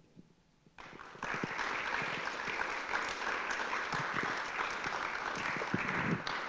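Audience applauding, starting about a second in after a brief hush and going on steadily.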